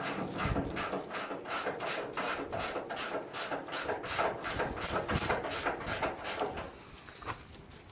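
Rhythmic rasping strokes, about four to five a second, from a hand tool such as a ratchet or jack handle being worked steadily. The strokes fade out about six and a half seconds in.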